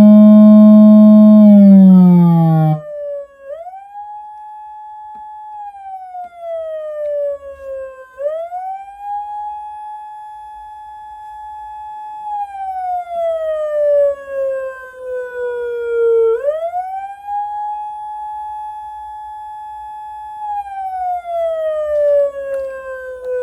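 PATLITE SAP-50 electronic siren amplifier sounding through a Federal Signal Rumbler. For the first three seconds there is a loud, low tone with many overtones, which cuts off suddenly. Then a quieter siren wail follows: it rises quickly, holds high for a few seconds, then falls slowly, repeating about every eight seconds.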